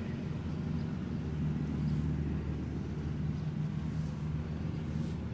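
A motor running steadily in the background: a low, even hum that holds one pitch.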